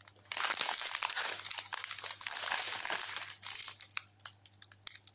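Clear plastic zip bags of square diamond-painting drills crinkling as they are handled and shifted about. About a second before the end the crinkling thins out to a few light clicks.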